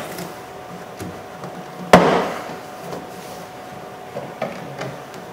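Plastic retaining clips of a Toyota Corolla interior door panel popping loose as the panel is pried off with a clip tool: one loud sharp pop about two seconds in, with a few lighter clicks before and after.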